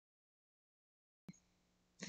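Near silence: the sound track is muted, then a single faint click a little over a second in, followed by faint room hum.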